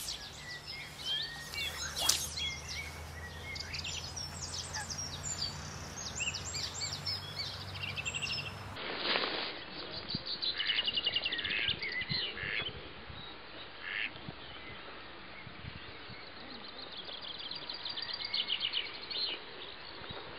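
Birds calling and singing around a lake, short calls and quick repeated call series throughout. A steady low hum underlies the first part and stops abruptly about nine seconds in.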